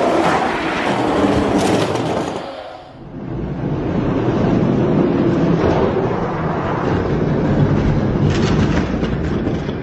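Hot Wheels die-cast monster trucks rolling down a long orange plastic drag track, a continuous rumbling rattle. It drops away briefly about three seconds in, then rumbles on.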